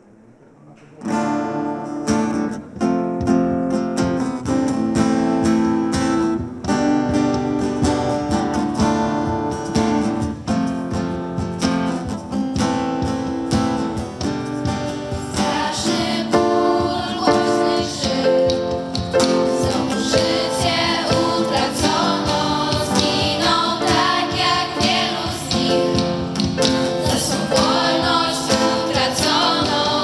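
Live acoustic guitar strumming an instrumental intro with held chords, starting about a second in; about halfway through, a girls' vocal group joins in, singing together over the accompaniment.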